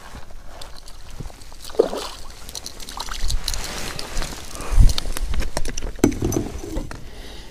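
Crucian carp splashing at the surface as it is hooked on a float rod and lifted out of the water, mixed with rod and handling clicks against an inflatable boat. The loudest sound is a dull thump about five seconds in as the fish is swung aboard.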